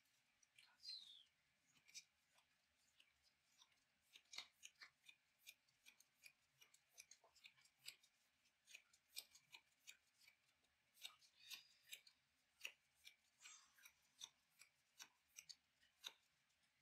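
Faint, irregular clicks and ticks of trading cards being handled and laid down on a table, against near silence.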